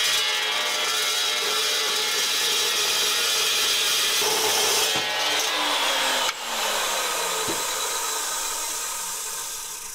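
A 14-inch metal-cutting chop saw slices through rectangular steel tubing for about six seconds. The cut then breaks off suddenly and the blade coasts down with a falling whine, with a single click partway through the spin-down.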